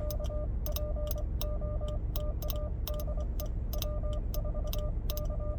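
Morse code sent on a Begali Simplex paddle: a steady mid-pitched sidetone keyed on and off in dots and dashes, with sharp clicks from the paddle's contacts as it is worked. A steady low hum runs underneath.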